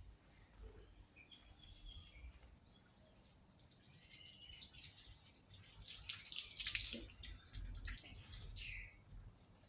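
Running water splashing as a dog is rinsed of turmeric paste, swelling to its loudest about halfway through and easing off near the end. Birds chirp faintly.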